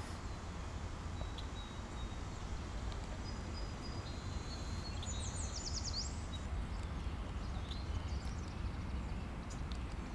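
Outdoor ambience: small birds chirping over a steady low rumble, with a quick run of calls about five seconds in.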